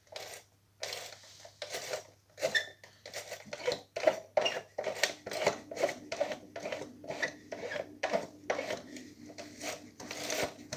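Plastic parts of a long-handled cleaning brush being handled and worked, a rapid run of scraping, rubbing and clicking strokes, about one or two a second.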